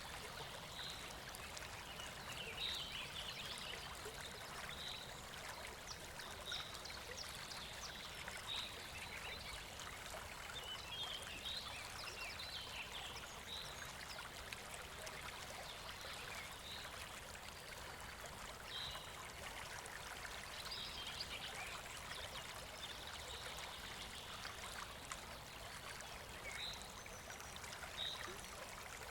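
River water rushing steadily, with short high chirps repeating every second or two over it.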